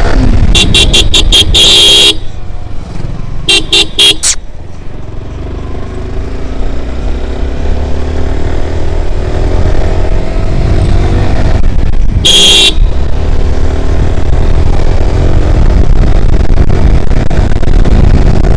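Kawasaki ZX-10R's inline-four engine running under way, quieter for a few seconds after the first toots and then gradually building again. Over it, a vehicle horn sounds in short rapid toots three times: near the start, about four seconds in, and about twelve seconds in.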